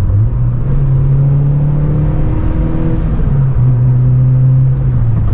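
Honda Civic Si's K24 four-cylinder engine pulling through a Full Race cat-back exhaust while driving, a low rumble. The engine note rises just after the start, holds, dips briefly a little past halfway and settles again.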